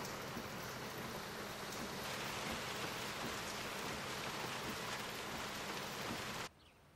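Heavy rain pouring down in a steady hiss, a little louder about two seconds in, cutting off suddenly near the end.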